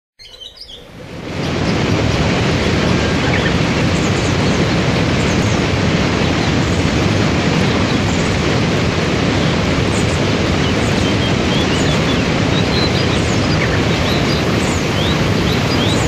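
Waterfall and rapids in a forest: a steady rush of falling and churning water that fades in over the first second and a half. Birds chirp faintly above it now and then.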